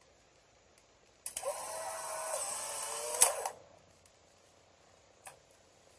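Modified Polaroid SX-70 OneStep box camera taking a picture: the shutter clicks about a second in, then the film-ejection motor runs with a steady whine for about two seconds as it drives the print out, ending with a click. A faint click follows near the end.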